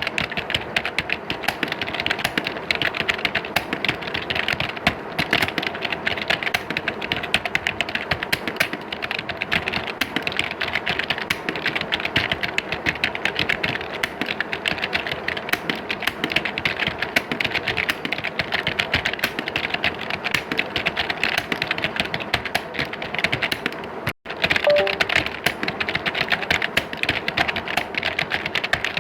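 Several people typing on computer keyboards at once: a dense, continuous clatter of key clicks with no pauses. The sound cuts out for an instant about 24 seconds in.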